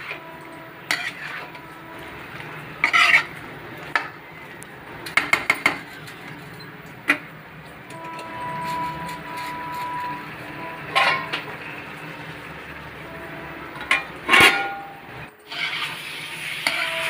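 Steel spoon scraping and clanking against a metal kadhai while jackfruit pieces are stirred into thick masala, in irregular knocks and scrapes with a quick run of clinks midway; the loudest knock comes near the end.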